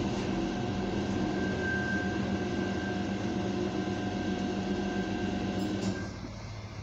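A steady machine hum with a few held tones that cuts off abruptly about six seconds in.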